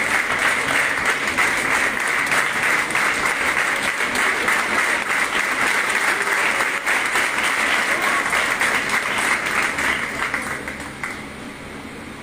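Audience applauding steadily, dying away about ten and a half seconds in.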